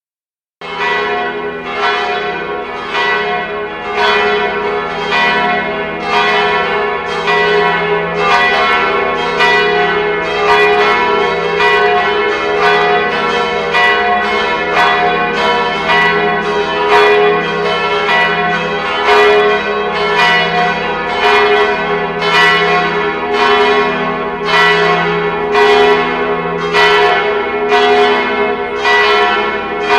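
Church bells ringing in a rapid, continuous peal, about two strikes a second over a sustained ring, starting abruptly just after a brief silence.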